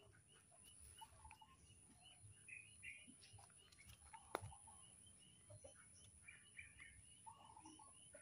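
Quiet yard ambience of faint, repeated small bird chirps over a thin steady high-pitched tone, with one sharp click a little past four seconds in.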